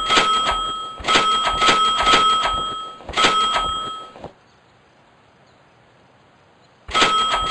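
Loud bursts of one steady high tone with a fast pulsing in it, each a second or two long: three close together, a gap, then a fourth near the end.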